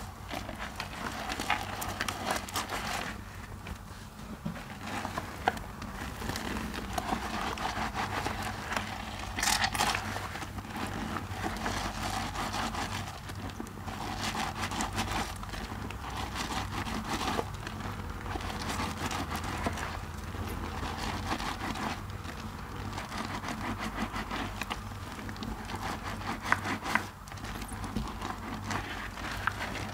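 Wet, mushy soap lather squeezed and kneaded by rubber-gloved hands: a continuous squishing and crackling made of many small pops of foam, rising and falling with each squeeze.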